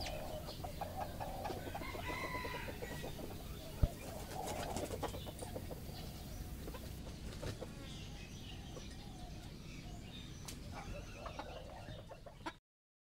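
A young chicken making short calls, with small scratchy clicks from its feet on the net. A single sharp tap comes about four seconds in, and near the end its wings flutter as it hops off.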